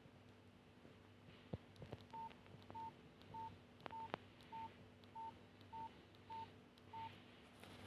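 Nokia 5130 XpressMusic phone beeping faintly: nine short, identical single-pitch beeps, evenly spaced about 0.6 s apart, starting about two seconds in. A few faint clicks come before and among them.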